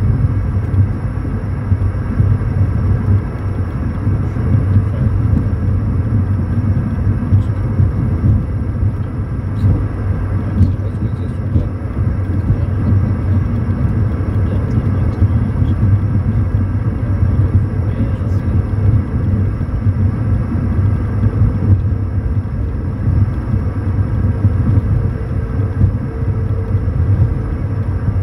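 Cockpit noise of a Bombardier Challenger 350 business jet rolling along the runway after touchdown. A steady, loud low rumble is overlaid with several steady whining tones from its Honeywell HTF7350 turbofans.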